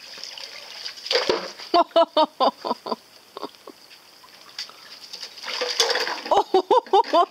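Water splashing as a small model foil kayak is towed quickly on a string across the surface, in two spells: about a second in and again near the end. After each splash comes a quick run of short, high-pitched vocal sounds.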